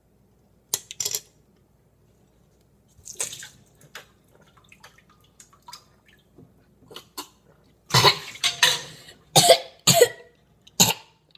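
A boy coughing and sputtering after swallowing a spoonful of soy sauce. There are a couple of brief sounds in the first few seconds, then a burst of five or six loud coughs starting about eight seconds in.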